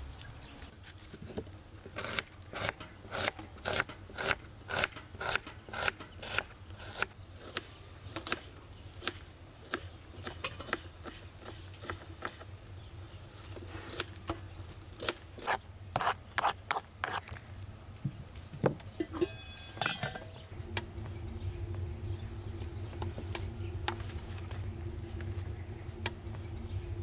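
Kitchen knife chopping an onion on a wooden cutting board: runs of sharp chops, about two a second, with pauses between the runs. Near the end a steady low hum takes over.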